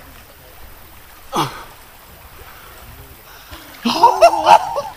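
Excited wordless vocal outbursts from men: a short falling cry about a second and a half in, then a loud burst of yelling and whooping near the end.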